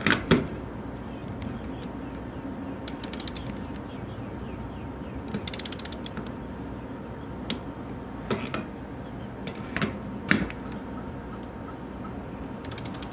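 Torque wrench ratcheting on the fitting's bolts: short runs of rapid pawl clicks about three seconds in, around six seconds and at the end, with a few single sharper clicks between, as the bolts are checked to 20 foot-pounds.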